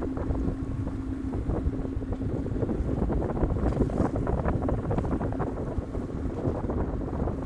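Wind buffeting the microphone on the deck of a sailboat motoring along. Under it runs a low steady hum from the boat's engine.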